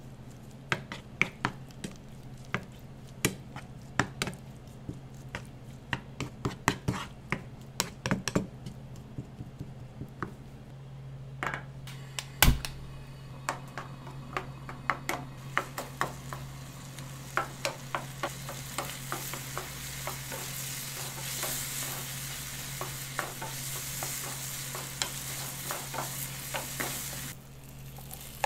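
A wooden spatula clicks and scrapes against a nonstick frying pan as diced chicken in sauce is stirred, with one loud knock about twelve seconds in. From about halfway the saucy chicken sizzles over the gas flame under the continued stirring, and the sizzle cuts off suddenly near the end.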